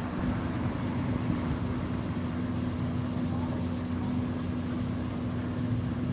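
A tow truck's engine idling with a steady, unchanging hum.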